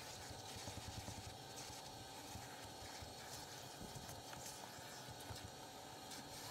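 Vacuum running through a hose and crevice tool drawn along car floor carpet: a steady hiss with an even whine, and irregular soft knocks as the tool works the floor by the seat rails.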